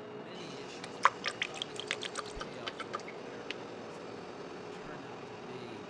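Light, irregular clicks and taps of plastic sauce bottles against a plastic blender jar as sauces are squeezed and poured in. They come as a quick run of about a dozen through the first half, then give way to a faint steady hiss.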